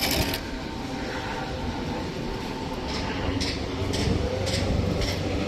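A hand tool scraping over wet mortar screed: short repeated strokes, about two a second in the second half, over a steady low drone.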